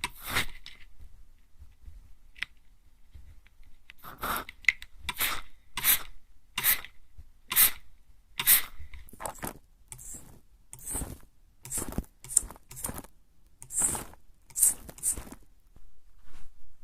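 Hand mist sprayer spritzing at the ear, close to the microphone: a series of short hissing puffs, about one a second, after a brief lull near the start.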